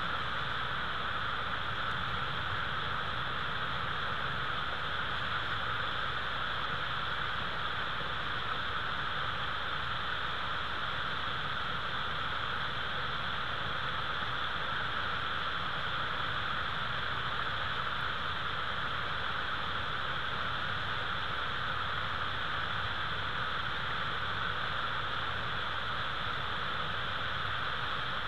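Steady, even hiss with no distinct sounds standing out of it.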